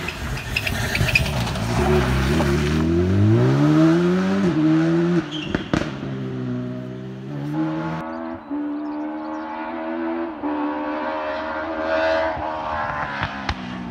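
Rally car engine accelerating hard through the gears, its note climbing and then dropping at each upshift, with a sharp crack partway through. In the second half the engine note holds high and steady, then falls away near the end.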